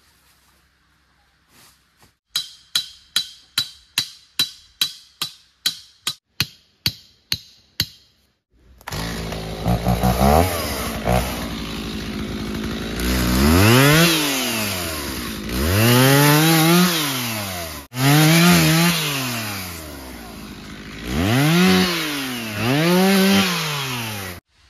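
A quick run of sharp knocks, about three a second, for several seconds. Then a two-stroke chainsaw starts running and is revved up and down again and again as it cuts, with one short break in the middle.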